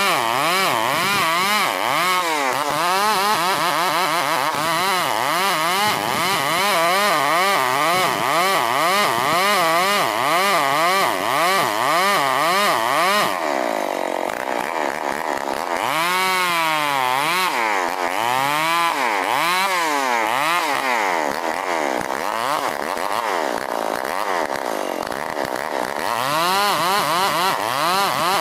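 STIHL 070 two-stroke chainsaw running under load as it rips lengthwise through a dense ulin log. Its engine pitch wobbles up and down over and over. About halfway through, the high cutting hiss drops away for a couple of seconds as the pitch sags, then picks up again.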